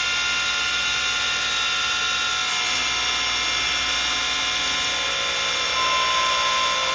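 Wood lathe running with a steady motor whine as the spindle blank spins. From about the middle a turning gouge cuts into the blank, adding a cutting hiss and a new tone, a little louder near the end.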